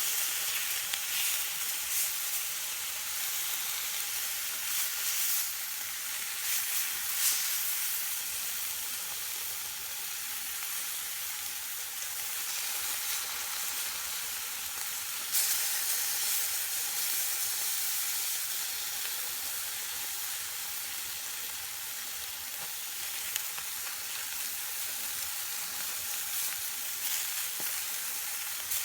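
Chicken frying in a wok over an open fire: a steady sizzle with scattered spits and crackles.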